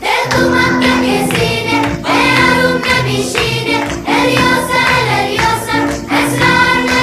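Background music with choir-like singing, held notes changing in steps.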